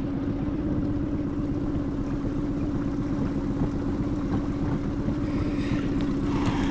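Boat motor on a small inflatable fishing boat running steadily, a constant hum.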